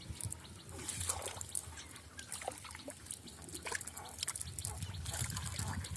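Water trickling and dripping from a wet cast net as it is lifted and handled at the water's edge, with irregular small splashes and patters.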